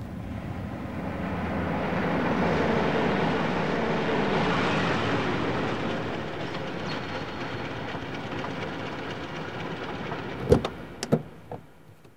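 A jeep driving past and turning in, its engine and tyre noise swelling over the first few seconds and then fading. Near the end come two sharp clunks about half a second apart as its doors are opened.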